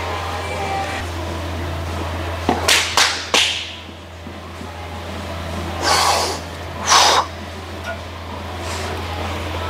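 Four sharp slaps in quick succession, then two loud, forceful breaths about a second apart as a lifter braces over a strongman log before a clean. A steady low hum sits underneath.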